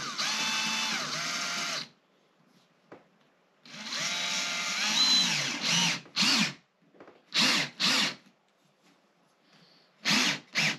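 Cordless drill/driver driving screws into a caster's mounting plate. It makes a run of about two seconds, then after a pause a longer run whose motor pitch rises and then falls. Near the end come five short bursts on the trigger.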